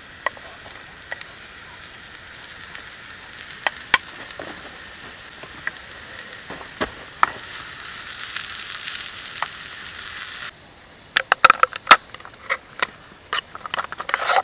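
Sliced mushrooms frying in a small skillet over a campfire: a steady sizzle with scattered pops and the scrape of a wooden spatula stirring. About ten seconds in the sizzle cuts off, and a quick run of sharp clicks and knocks follows as a wooden box of cork-stoppered glass spice jars is handled and its sliding lid opened.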